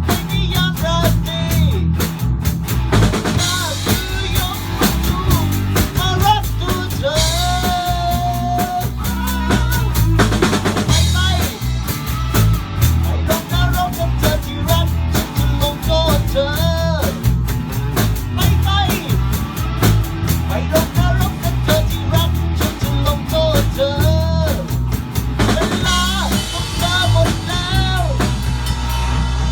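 Rock band playing live, a drum kit keeping a steady beat under bass and a melodic line.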